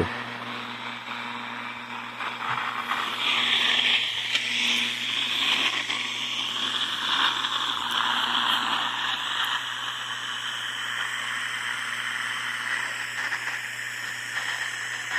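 Static from a handheld radio receiver: a hissing, crackling band of noise that swells about three seconds in and wavers up and down in pitch, over a low steady hum. The uploader takes it for a strong targeted radio-frequency transmission.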